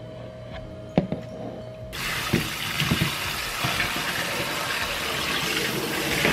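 Kitchen tap turned on about two seconds in, water streaming into a bowl in a stainless-steel sink as aged kimchi is rinsed by hand. Before it, a single sharp knock about a second in.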